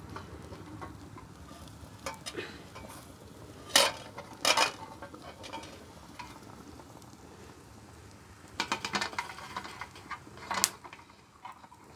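Cookware being handled over a cooking fire: sharp knocks and clatters of a pot and utensil, the loudest pair about four seconds in and a quick cluster near nine seconds, over a faint steady background.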